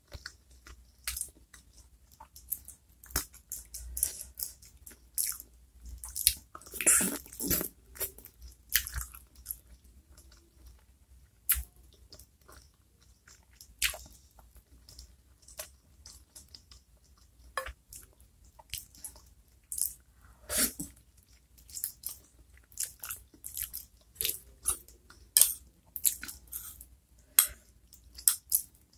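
Close-miked chewing of soft chicken meatballs and chicken feet in chili sauce: irregular wet mouth clicks and smacks, with a couple of louder, fuller bursts along the way.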